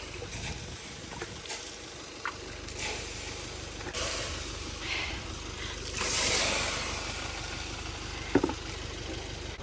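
Water poured onto an RV's overheated brake, hissing and sizzling on the hot metal, with louder swells of hiss about four and six seconds in; the brake has been burning and smoking after a long descent. A short sharp clatter comes near the end.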